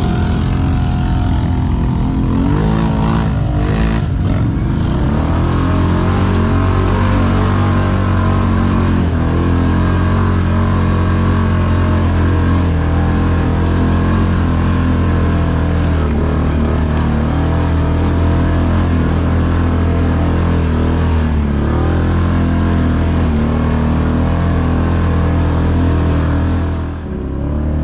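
Can-Am ATV engine running steadily at about 5,000 rpm under load, heard from the rider's seat. The engine note shifts in pitch around three to four seconds in and dips briefly near the end.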